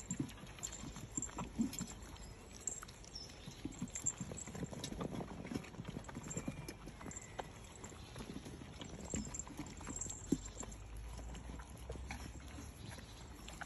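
A cavapoo and her puppies eating from a stainless steel bowl: irregular wet chewing and licking, with knocks of the metal bowl as it is pushed about on paving.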